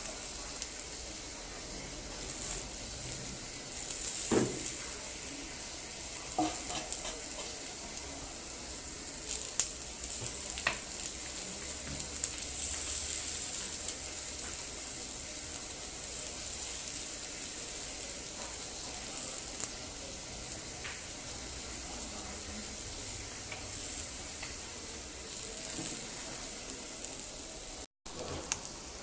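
Whole fish sizzling on an electric grill plate over low heat: a steady high hiss with a few scattered crackles and pops. The sound cuts out for an instant near the end.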